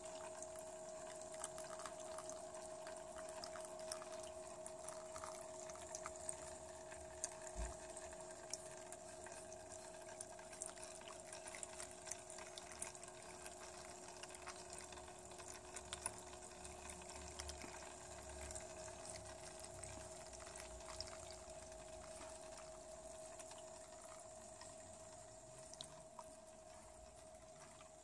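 Faint water trickling and dripping in a small solar-powered hydroponic system, many small drips over a steady hum.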